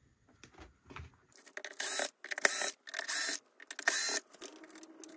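Electric screwdriver whirring in four short spurts as it backs out the screws holding the UPS's back panel, followed by a fainter steady hum.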